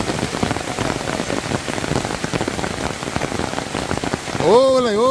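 Steady rain, many fine drops pattering close to the microphone. Near the end a pitched, wavering call rises and falls in short repeated arches over the rain.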